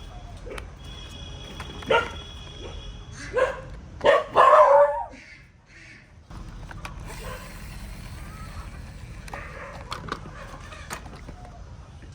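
A dog barking: a few short barks about two seconds in and again around three and a half to five seconds in, the last the loudest. A steady low hum runs underneath.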